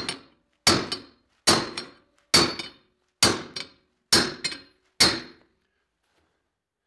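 A heavy hammer pounds a steel angle iron welded to a pipe, in a weld clip test. There are about seven hard metallic blows, a little under one a second, each with a short ring and a lighter rebound tap, and they stop about five seconds in. The angle iron bends over at the weld under the blows.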